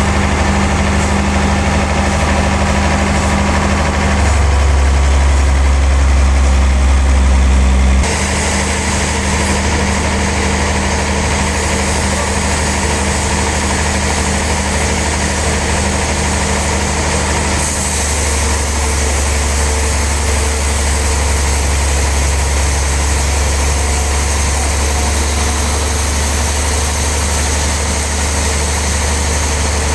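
Heavy machinery running steadily, a low engine drone. Its tone changes abruptly about 4, 8 and 18 seconds in.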